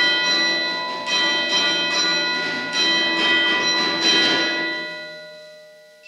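Percussion ensemble playing slow, ringing bell-like tones on mallet percussion. There are four struck chords a second or so apart, each left to ring, and the sound dies away near the end.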